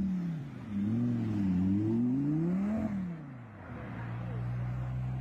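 Audi R8 sports car engine revving hard as it pulls away, its pitch rising and falling several times. About three and a half seconds in the revving falls away, leaving a steady lower engine drone.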